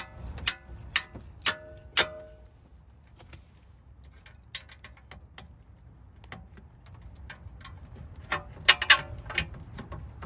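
Five quick ringing metal strikes about half a second apart: a hammer hitting a wrench on a very tight brake caliper bridge bolt. Light metallic clicks and clinks of the tool follow, then a short cluster of sharper metal clanks near the end.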